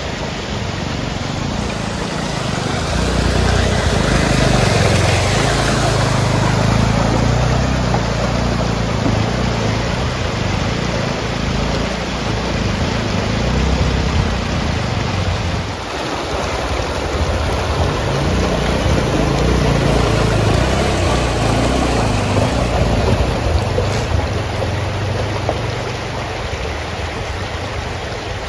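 Motorcycle engine running as the bike is ridden along a rough trail, its note picking up a few seconds in, under a loud steady rushing noise.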